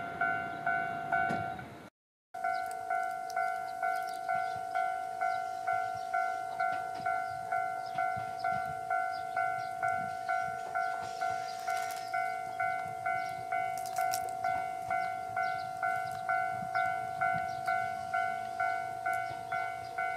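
Railway level crossing warning bell ringing steadily at about two strikes a second, the signal that a train is approaching. The sound drops out briefly about two seconds in, then the same bell carries on.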